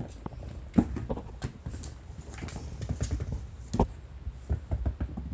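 A run of irregular soft thumps and clicks: kittens scampering and pouncing on tatami and a floor cushion, mixed with rustling handling noise from the phone.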